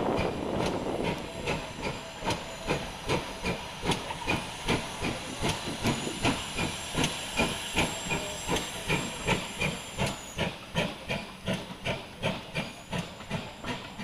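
GWR steam locomotive working under steam, its exhaust beating steadily at about two chuffs a second amid a hiss of steam.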